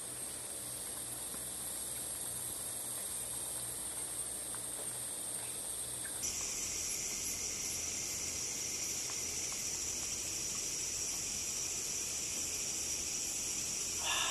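Chorus of night insects, a steady high-pitched chirring. About six seconds in it changes abruptly to a lower, slightly louder chorus.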